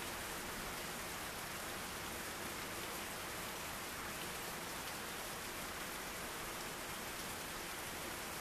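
Steady rain falling during a thunderstorm: an even, unbroken hiss.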